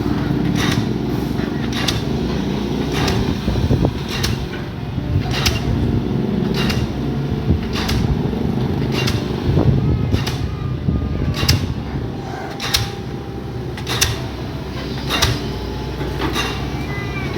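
Excavator's diesel engine running steadily under load, with sharp clicks repeating roughly once every second over it.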